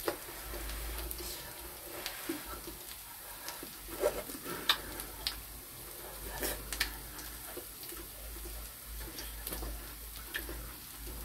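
Quiet mukbang eating sounds: chewing and scattered clicks of chopsticks, over a faint sizzle from pork belly and onions on a tabletop gas grill.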